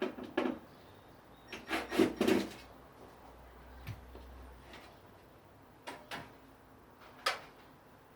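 Short knocks and clatters from objects being handled and set down, about eight in all, with several bunched together around two seconds in.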